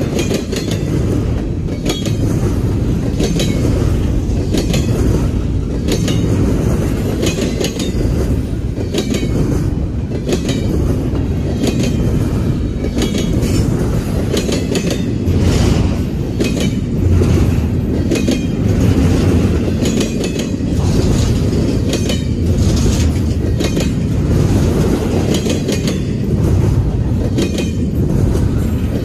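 Double-stack intermodal container train rolling past: a loud steady low rumble from the well cars and their wheels, with wheel clicks coming in a steady repeating rhythm as the cars pass.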